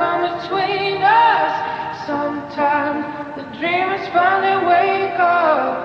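Voices singing a slow, sustained melody with little or no instrumental backing, notes held and bending in pitch with vibrato.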